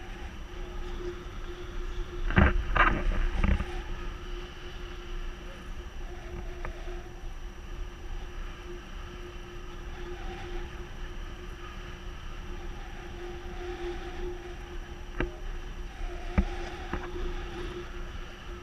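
Wind rushing over an action camera's microphone in paraglider flight, with a steady faint tone underneath. A few loud knocks come about two to four seconds in, and single clicks come near the end.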